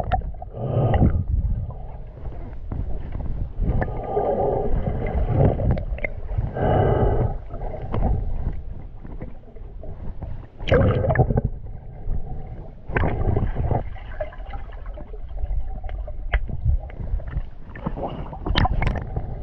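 A swimmer in the water breathing hard in irregular loud bursts every few seconds, with water gurgling and splashing.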